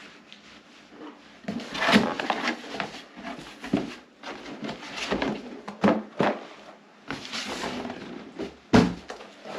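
Cardboard box and packaging being opened and handled: irregular rustling and scraping with sharp knocks, the loudest near the end.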